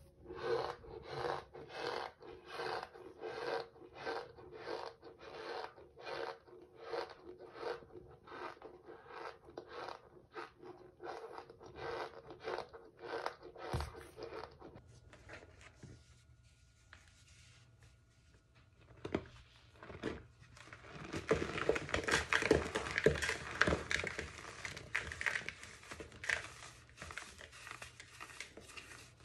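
Cornstarch pressed and squeezed, crunching in an even rhythm of about two presses a second. After a quieter pause, hands squeeze baking soda, a denser and louder crunching.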